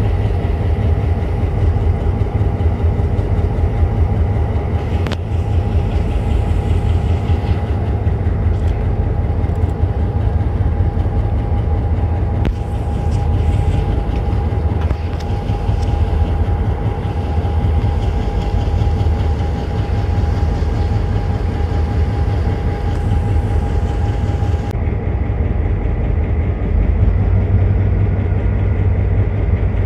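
Diesel locomotive engine idling steadily, a constant low drone with a steady whine over it. Near the end the whine and a high hiss stop abruptly while the engine keeps running.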